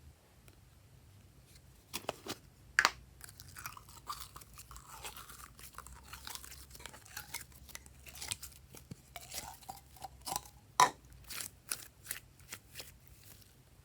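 Glossy slime being mixed and squeezed, making sticky clicks and crackles, with a few louder snaps about two to three seconds in and again near eleven seconds.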